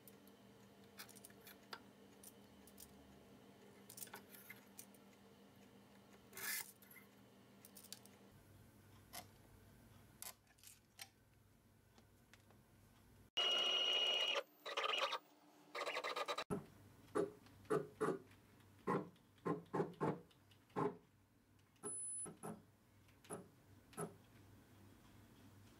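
Clicks and taps of hand tools and hold-down clamps as stock is clamped to a CNC mill table, over a faint steady hum. About halfway through, a louder burst of noise lasts roughly three seconds, followed by a quick run of sharper clicks.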